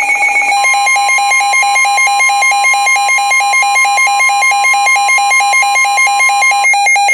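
Weather-radio alert alarm: a steady warning tone with a fast-pulsing beeping alarm over it. The steady tone cuts off shortly before the end, and the beeping carries on a little longer, marking the start of a new warning broadcast.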